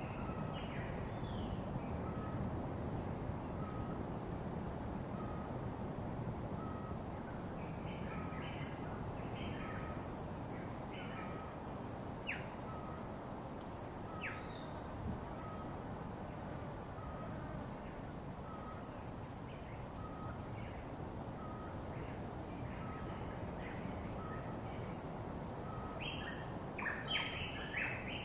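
Wild birds calling over a steady low rushing background. A short note repeats about every second and a quarter, scattered chirps come and go, and there are two sharp falling whistles midway and a brief burst of several calls near the end.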